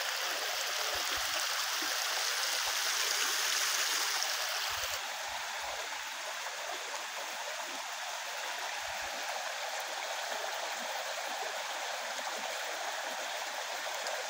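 Steady rush of a mountain stream, a little louder for the first five seconds and then evening out, with a few short low bumps on the microphone.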